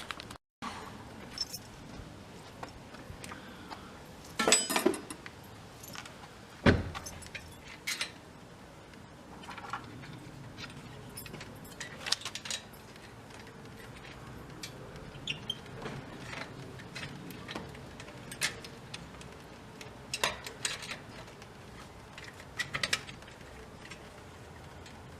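Intermittent metallic clinks and knocks of tools and metal bicycle parts being handled, with the loudest single knock about seven seconds in.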